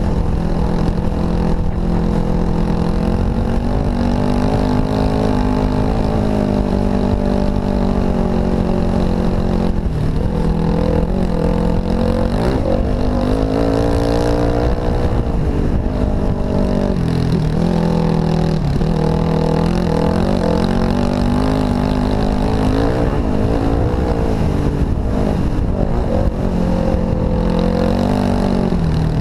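Dirt bike engine running under load on a trail ride, its pitch rising and falling as the throttle is worked and gears change, with one longer rev climbing and dropping about halfway through.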